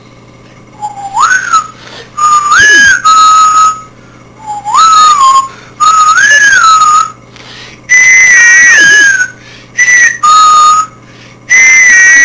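A loud whistled tune: a string of short phrases whose notes swoop up, hold and slide down, with brief pauses between them.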